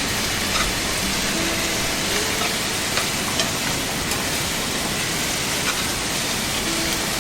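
Meat sizzling in a hot pan: a steady frying hiss with scattered small pops and crackles.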